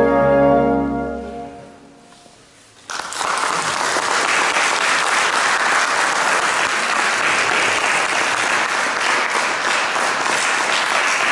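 A wind ensemble's final held chord fades away over about two seconds. After a short hush, the audience bursts into steady applause that continues to the end.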